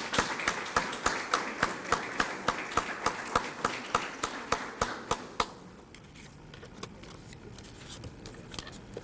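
Audience applauding, with one nearby person's sharp claps standing out at about three a second. The applause stops about five and a half seconds in, leaving quiet room noise.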